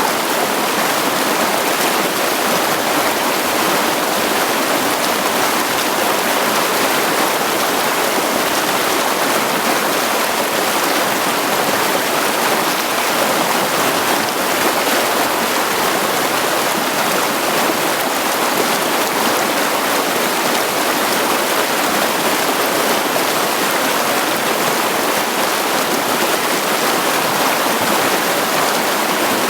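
Mountain stream running over rocks: a steady rush of water with no breaks.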